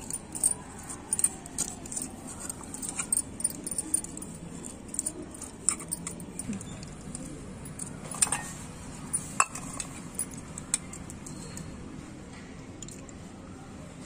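Light, irregular metallic clinks and taps of fingers and a metal ring against a small aluminium pot, with faint water swishing, as raw chicken pieces are washed by hand in the water.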